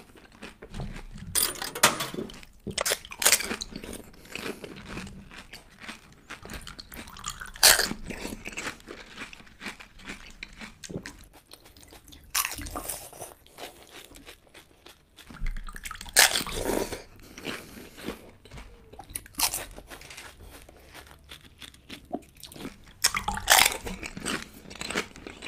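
Pani puri being eaten close to the microphone: hollow fried puris filled with spiced water crunch as each is bitten whole, with wet chewing in between. A loud crunch comes every two to five seconds, about seven in all.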